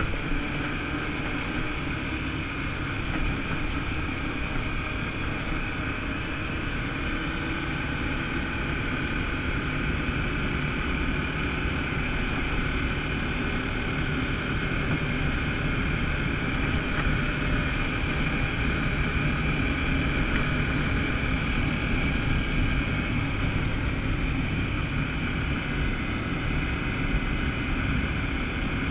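ATV engine running steadily under way on a dirt trail, heard from the rider's seat. It picks up a little in the first several seconds as the quad speeds up, then holds an even cruise.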